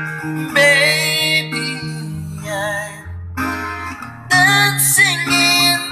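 A man singing a slow ballad into a handheld karaoke microphone over a strummed acoustic guitar backing track, his held notes wavering in pitch.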